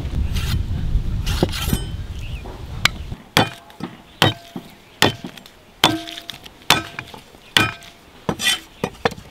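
Heavy Chinese cleaver striking garlic cloves on a thick wooden stump chopping block, about one sharp blow a second, with the steel blade giving a brief metallic ring after several blows. Over the first three seconds a low steady rumble with a few knocks underneath cuts off suddenly.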